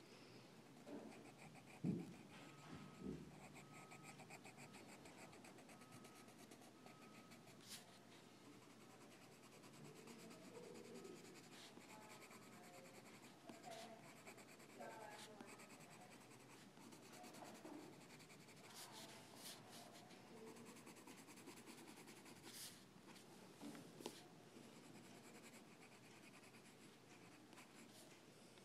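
Faint scratching and rubbing strokes on a hard surface, with a few soft knocks, the loudest about two seconds in.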